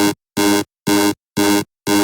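Electronic timer-end alarm from the Time and Date online timer beeping about twice a second, each buzzy beep about a third of a second long with short silent gaps between.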